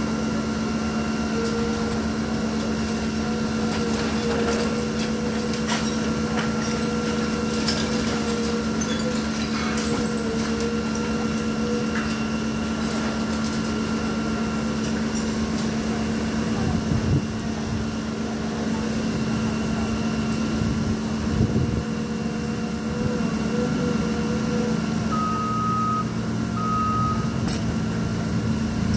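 Heavy diesel machinery running steadily, with a vehicle's reversing alarm. A steady high tone sounds for about the first half, and two short beeps come near the end. A few light knocks are heard in the first half.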